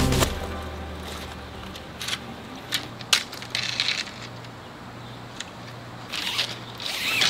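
Tent fabric rustling and crinkling as a long pole is pushed through the Snow Peak tunnel tent's pole sleeve, with scattered sharp clicks and knocks from the pole.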